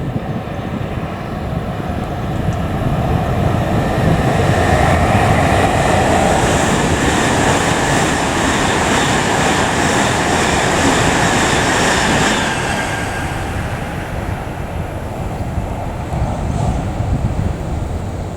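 A train passing: the rumble builds over a few seconds, stays loud, then fades about two-thirds of the way through.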